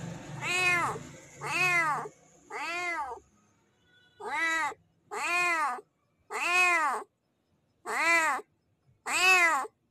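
Male cat meowing over and over: eight loud calls, each rising then falling in pitch, about one a second with a short pause after the third. These are a tomcat's calls to a female in heat.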